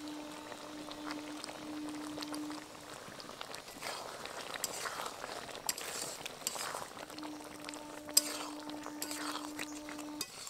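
Spatula stirring a thick, simmering vegetable stew in a metal kadai, with repeated scrapes and clinks against the pan.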